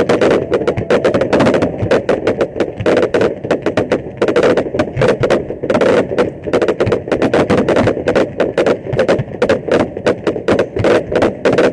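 Fireworks display at full barrage: shells and ground batteries firing in a rapid, unbroken run of bangs and crackling pops, several a second.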